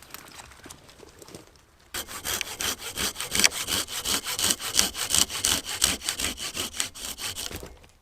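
Hand saw cutting through wood in rapid, even back-and-forth strokes. It starts about two seconds in and stops just before the end.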